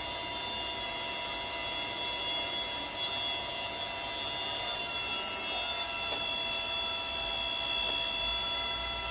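Fan of a Kaleido M10 Sniper Pro electric coffee roaster running steadily to cool the freshly dropped beans: an even whirr with several high whining tones, which shift slightly about halfway through.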